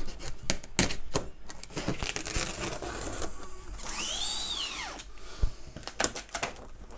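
A large cardboard monitor box being handled and turned over: a string of scrapes and knocks, and about four seconds in a short squeak that rises and falls in pitch as the cardboard rubs.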